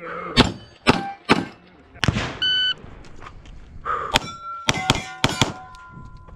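Glock 45 9mm pistol firing a string of shots at steel targets, the struck plates ringing after hits. Shots come a few in the first second and a half, then after a pause a quick cluster between about four and five and a half seconds in.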